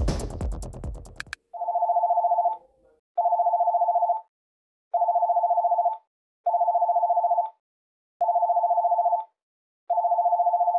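Electronic phone ringing: six short trilling rings, each about a second long, repeating every second and a half or so. Electronic music cuts off just before the first ring.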